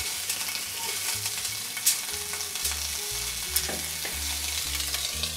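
Salmon collar pieces sizzling steadily in a frying pan on a foil sheet, with a few light clicks as chopsticks move the pieces.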